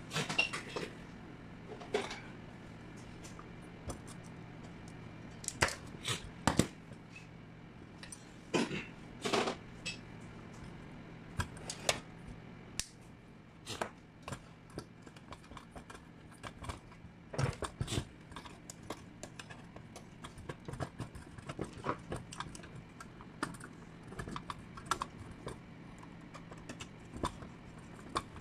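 Irregular clicks, taps and light clatter of metal parts being handled on a DeSisti 1K lamp fixture under repair: the lamp holder, housing and screwdriver knocking together, with a low steady hum underneath.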